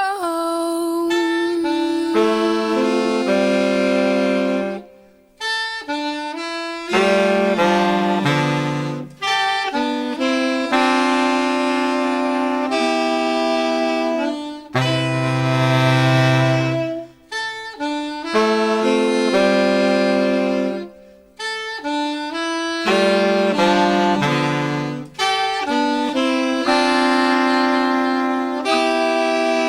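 Saxophone ensemble playing slow, held chords in phrases of a few seconds, with short breaks between them, no voice.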